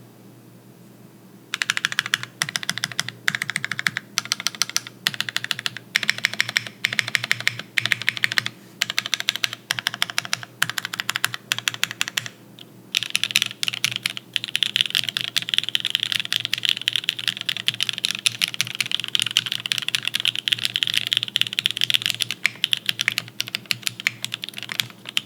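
Typing on a Matrix Hiya mechanical keyboard with lubed NK Cream linear switches in a full aluminium plate and GMK keycaps. Rapid keystrokes start about a second and a half in and come in bursts, with a short pause midway before a long stretch of fast, continuous typing.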